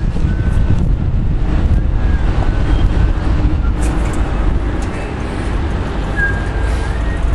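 Wind buffeting the microphone in a steady low rumble, over the engine of a Mercedes O 405 N² city bus pulling in and stopping.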